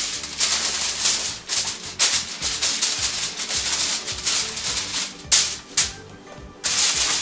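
Aluminium foil crinkling in bursts as gloved hands press, smooth and fold it over a stove top, with two short sharp crackles and then a quieter moment near the end.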